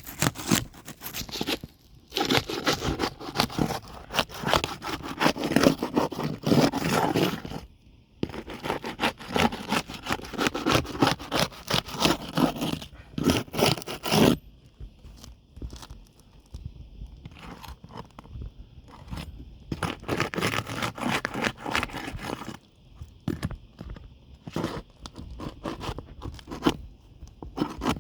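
Roof snake scraping and prying under brittle architectural asphalt shingles to work the nails loose, with grinding and crackling of the shingle material. The scraping is dense through the first half, then comes in shorter, separate strokes and clicks.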